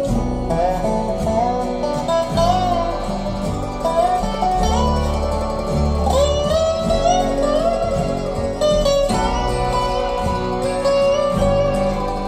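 Acoustic country-bluegrass music with plucked guitar under a gliding melody line, played back over YG Acoustics Carmel 2 hi-fi loudspeakers and picked up by room microphones.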